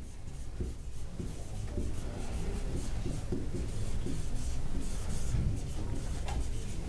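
Marker writing on a whiteboard: a run of short scratching strokes, over a steady low rumble.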